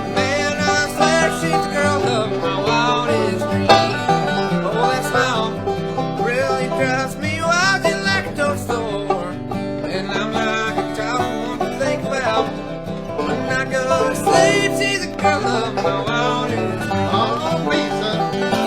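Bluegrass band playing, with banjo and acoustic guitar picking through a passage of the song.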